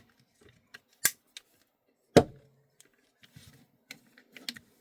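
Tokyo Marui MWS upper receiver being fitted onto a Double Eagle gas blowback rifle's lower receiver: scattered handling clicks, a sharp click about a second in and a loud clack a little after two seconds.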